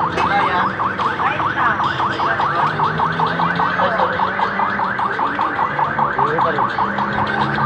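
Fast, regular electronic warbling, about eight to nine chirps a second, like an alarm siren pattern, with a steady low hum underneath.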